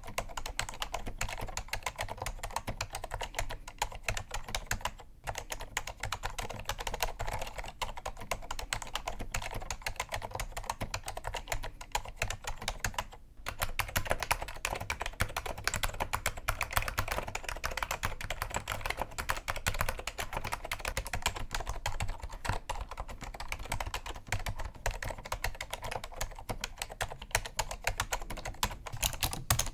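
Continuous fast typing on an Apple Extended Keyboard II with Alps SKCM Cream Damped switches: a dense stream of key clicks with brief pauses about 5 and 13 seconds in.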